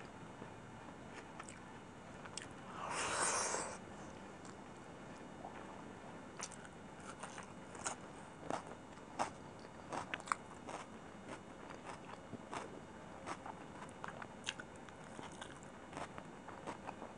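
Close-miked mouth sounds of someone eating chicken biryani by hand: chewing with many short wet clicks, and one louder noisy burst lasting under a second about three seconds in.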